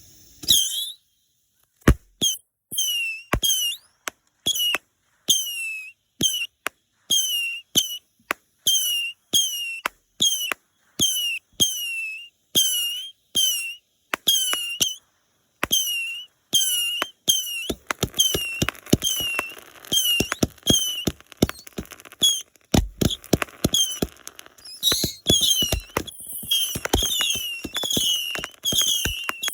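Consumer firework cake firing shot after shot, about two a second: each a sharp crack followed by a short whistle that falls in pitch. From about 18 s in, crackling fills the gaps between the shots.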